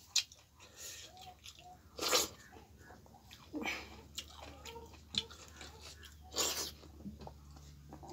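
Close-miked eating sounds of a person chewing millet dhido and chicken gizzard: soft mouth clicks and chewing, with short noisy bursts about every one and a half seconds.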